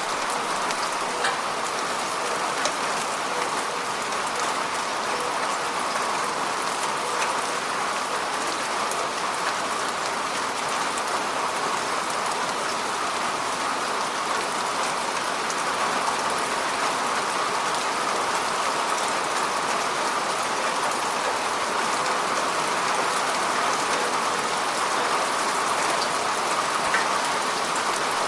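Steady rain falling on the water of a lake, a dense even patter with scattered sharper drops.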